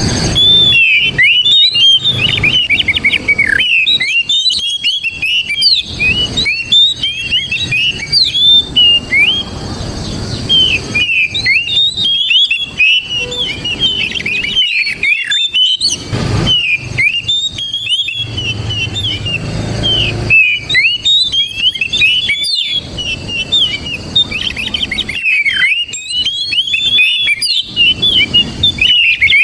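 Oriental magpie-robin singing a fast, varied run of whistled and chattering notes, broken by a few short pauses.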